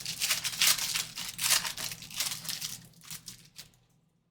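A 2023 Panini Phoenix Football hobby pack being torn open by hand, its wrapper crinkling and tearing in a quick run of rustles that die away about four seconds in.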